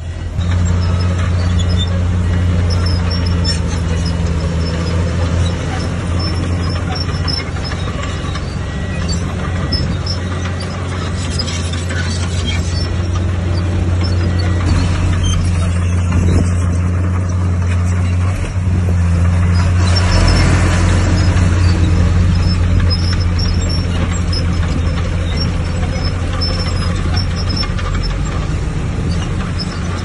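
Heavy diesel engine of earthmoving machinery running steadily under work, a deep constant hum with mechanical clatter over it.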